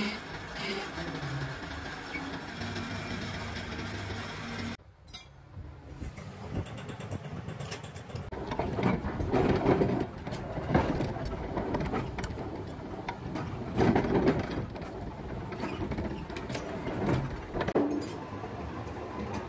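Metal lathe running as it cuts a steel bar, a steady machine noise. After a break about five seconds in, a chain-making machine works a red-hot iron link, a rough noise of dense clicks with loud bursts every few seconds.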